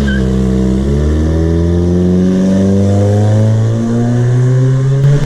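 Ford Focus four-cylinder engine accelerating hard with a loud rumble, its note rising steadily in pitch. The exhaust has been partly disconnected in the middle of the system, so the car runs with a loud, uncapped exhaust note.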